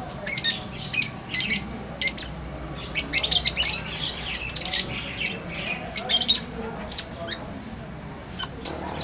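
Birds giving short, harsh, high-pitched squawks and chirps, many in quick succession at uneven intervals, busiest around three and six seconds in.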